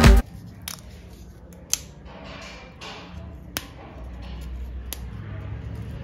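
Crisp fried murukku snapping as fingers break it apart: a few sharp, dry cracks spread irregularly over several seconds, the sound of a well-fried, crunchy snack. Background music cuts off right at the start.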